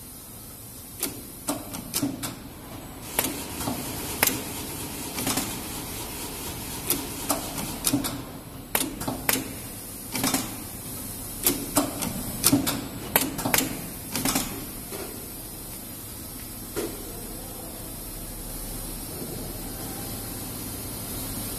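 Automatic radial component insertion machine running: quick, irregular mechanical clicks and clacks over a steady machine hum. The clicking thins out to the odd click after about fifteen seconds.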